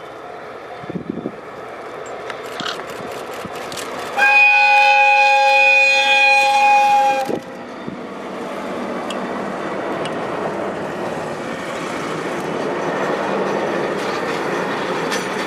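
DE10 diesel-hydraulic locomotive running light: its horn sounds one steady blast of about three seconds, several tones at once. The locomotive's running noise then grows louder as it comes by.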